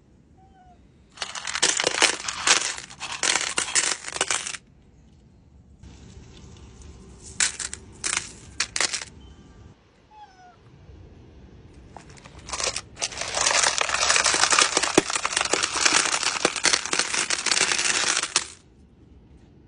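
Tumbled crystal stones clattering and clinking as they are poured from containers into a bin already heaped with stones. One pour lasts about three seconds near the start, a few separate clinks come midway, and a long pour of about six seconds comes near the end.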